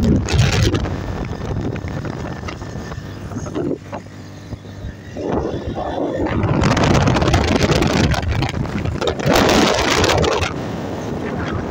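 Wind rushing over the microphone of a phone carried on a moving motorcycle, over the motorcycle's running and tyre noise on a wet road. The wind drops to a brief lull about four seconds in, then rises loudest from about six and a half to ten and a half seconds in.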